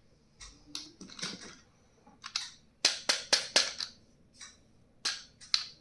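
Stationery and its packaging being handled: irregular sharp clicks and short crinkly rustles, with a quick cluster of louder clicks about three seconds in.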